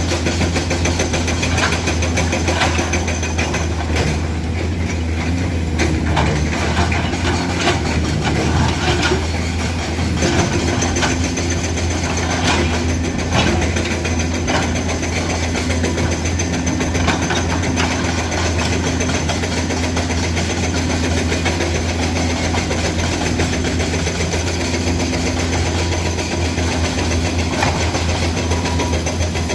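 Komatsu PC200 excavator's diesel engine running steadily, with occasional short knocks and clanks in the first half.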